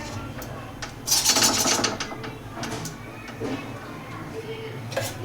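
Metal spoon scraping and clinking in a kadhai as desi ghee is added. A longer scraping stretch comes about a second in, with a few light clicks scattered through, over a low steady hum.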